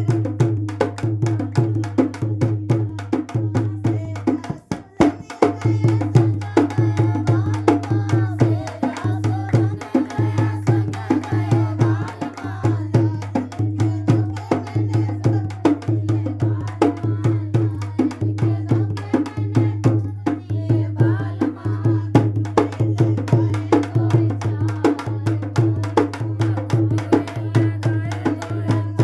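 Dance music with a fast, steady percussion beat over a pulsing bass and a wavering melody line; the beat drops out briefly about five seconds in.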